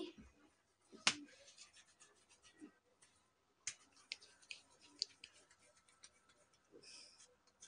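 Faint, sparse clicks and taps of hands handling kitchen bowls while a ball of dough is picked up, with one sharper knock about a second in and a few lighter clicks a couple of seconds later.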